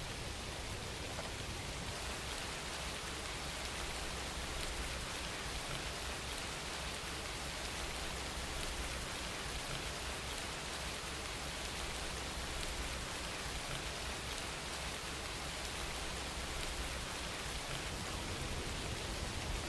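Steady rain falling, an even hiss with a low rumble underneath and no breaks.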